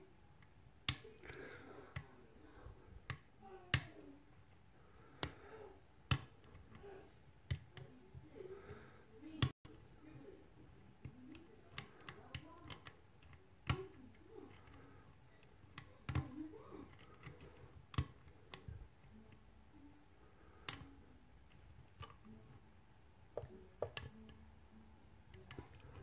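Lock pick working the pin tumblers of a brass mortise cylinder under a tension wrench: faint, irregular sharp metallic clicks, roughly one a second, as the pick lifts and sets pins.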